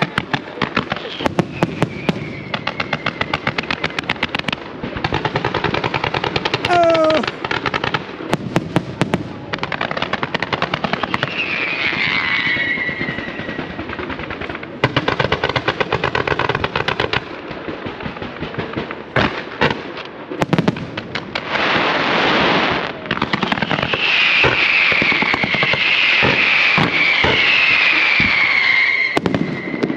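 Aerial fireworks display firing rapid salvos of launches and bangs, with dense crackling. Whistling fireworks give falling whistles near the middle and again through the last few seconds.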